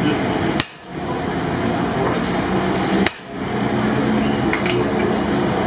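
Two heavy hammer blows on steel at a blacksmith's anvil while forging an axe head, about two and a half seconds apart, each with a short bright ring, over a steady machine drone.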